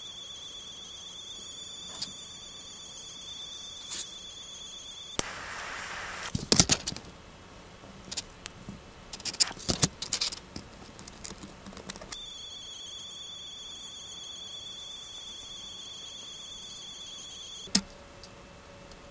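3D pen's filament feed motor whining as it extrudes PLA: a steady high-pitched tone with a faint flutter. It stops about five seconds in, giving way to small clicks and taps of fingers handling a tiny printed PLA piece. The whine returns about twelve seconds in and stops with a sharp click near the end.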